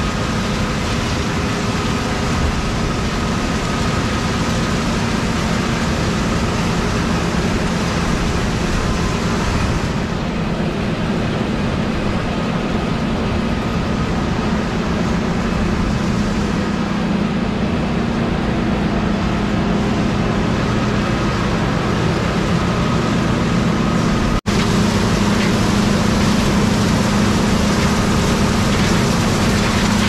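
John Deere STS combine harvester running steadily while harvesting: a continuous engine and threshing-machinery drone with a steady hum. It breaks off for an instant about 24 seconds in and resumes slightly louder.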